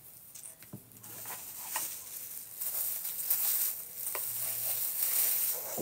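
Clear plastic bag crinkling and rustling as it is handled, starting about a second in, with a few small clicks.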